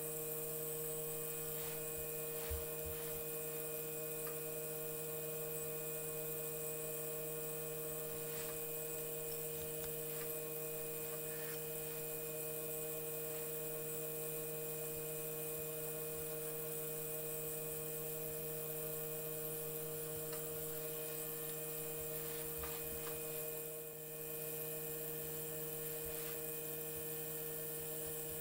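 Steady electrical hum holding several pitches, with faint scattered ticks and scrapes as old gasket is picked off a motorcycle cylinder.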